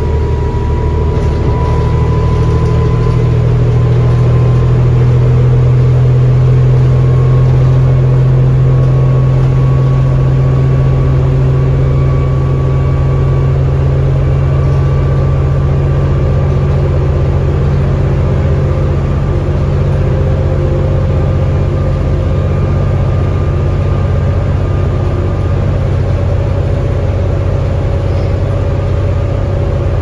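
The Cummins ISL inline-six diesel of a New Flyer D40LFR transit bus, heard from onboard, running under way with a steady low drone. A thin whine rises slowly in pitch over the first half, then holds steady.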